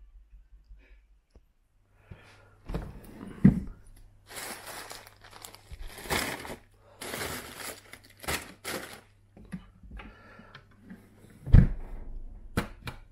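Chest freezer lid opened with a knock, then plastic and foil food bags crinkling and rustling as a hand sorts through the frozen packs. The lid shuts with the loudest thump near the end, followed by a couple of light clicks, all over a steady low hum.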